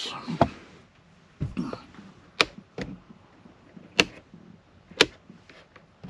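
Ford Super Duty overhead upfitter rocker switches being pressed and clicking, about six sharp clicks at uneven intervals as they are toggled on and off.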